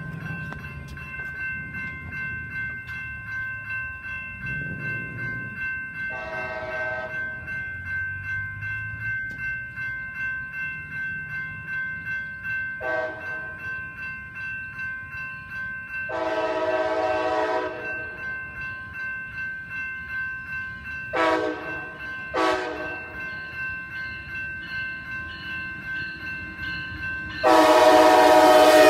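Coaster commuter train's locomotive horn sounding repeatedly as it approaches a level crossing: short and longer blasts, with the longest and loudest one starting near the end as the locomotive reaches the crossing. Under it the crossing's warning bell rings steadily.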